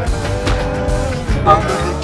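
Music with a drum beat and a held pitched note.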